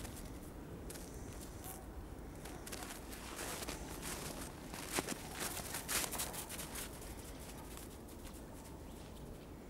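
Footsteps crunching in snow, with a cluster of short, sharp crunches around the middle, the loudest two about a second apart.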